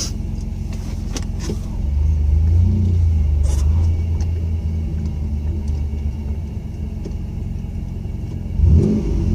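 A 1997 Camaro's 3.8-litre V6 running under way, heard from inside the cabin, its low rumble rising about two seconds in as the car pulls away and then settling to a steady drive. A short louder sound comes near the end.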